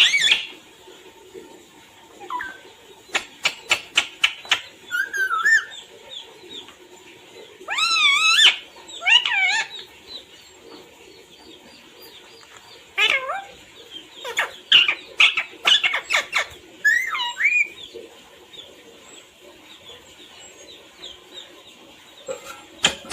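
Pet parrot giving short warbling calls and chirps, with runs of sharp clicks, in scattered bouts separated by short pauses.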